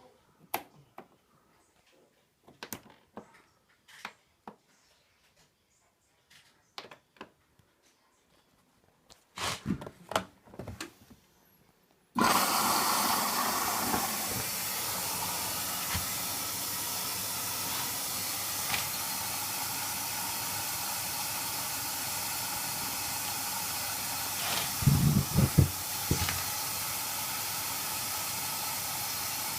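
Light clicks and knocks, then about twelve seconds in a Hoover Nextra washer dryer's water inlet valve opens with a sudden loud hiss of water filling the machine, which runs on steadily. A brief burst of low thumps comes later.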